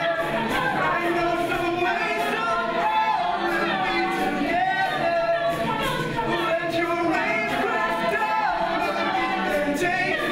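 Mixed-voice a cappella group singing: a male lead voice over the group's chords, with vocal percussion keeping a steady beat.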